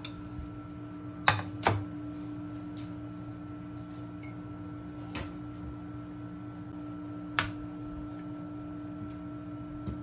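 A steady mechanical hum with four sharp clicks spread through it, two close together early and two more later.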